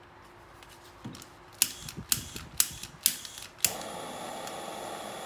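Freshly refilled Chefman butane torch being lit. Its piezo igniter gives about five sharp clicks, roughly half a second apart; on the last click, about three and a half seconds in, the flame catches and burns with a steady hiss.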